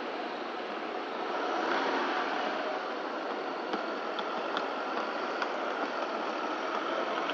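Steady hum of city street traffic, with a few faint clicks in the middle.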